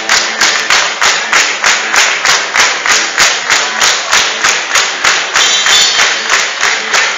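Live rock band music with a steady, even beat of about three hits a second.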